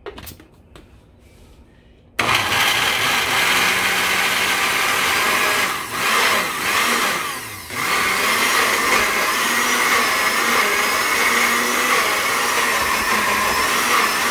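Countertop blender with a glass jar starting suddenly about two seconds in, after a few light knocks as its lid goes on, and then running loud as it purées chickpeas with coconut milk. The motor dips briefly twice as it labours on the thick chickpea mix, which seems hard for it.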